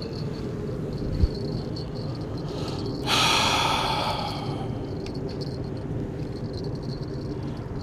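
A sharp click about a second in, then a loud breath-like rush that starts suddenly about three seconds in and fades over some two seconds, over a steady high trill of evening insects.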